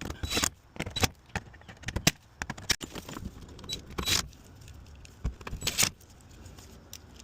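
Scattered metallic clinks and short jingling rattles of small metal parts and tools being handled, with a few sharp clicks in between, as Torx screws are fitted into the plastic undertray.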